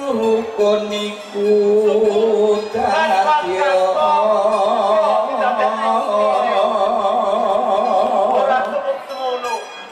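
A voice singing in traditional Javanese style, its held notes wavering with vibrato, over a steady sustained low accompaniment tone. The singing swells about three seconds in and fades near the end.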